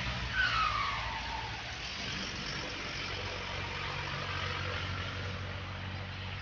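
Road traffic passing. A vehicle goes by with its pitch falling about half a second in, over a steady low engine drone.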